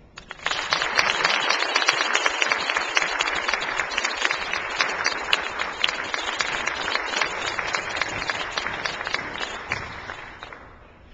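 Audience applauding, many hands clapping; it starts about half a second in and fades out near the end.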